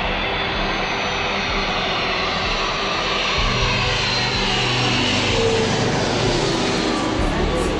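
Twin-engine jet airliner on landing approach flying low overhead, a loud steady jet roar whose engine whine falls in pitch as it passes.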